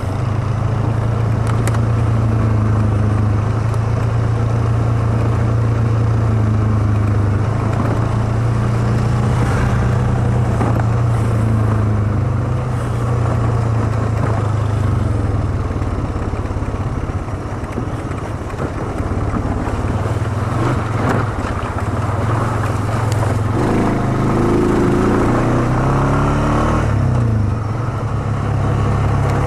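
ATV engine running steadily as the quad rides along a trail, the engine note easing briefly about halfway through and rising and falling in pitch a few seconds before the end.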